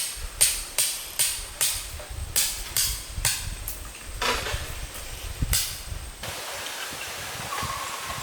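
Hammer blows driving a tent stake, in a quick even rhythm of two to three strikes a second, then a few spaced last blows, stopping about six seconds in.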